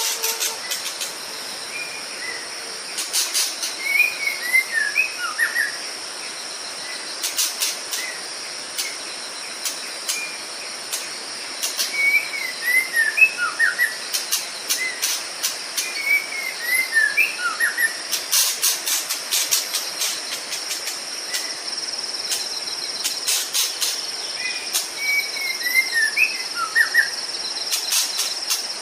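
White-rumped shama singing four short phrases of whistled notes that fall in pitch, over a steady high-pitched insect chorus with bursts of rapid clicking.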